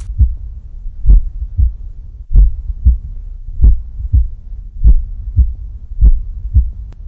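Heartbeat sound effect for suspense: slow, regular pairs of low thumps half a second apart, a new pair about every 1.25 s, over a faint steady low hum.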